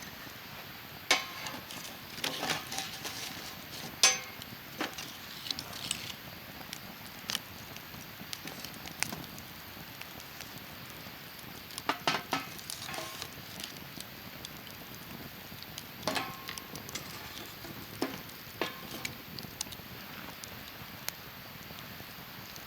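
Wood campfire crackling, with irregular sharp pops that come in small clusters a few seconds apart over a steady soft hiss.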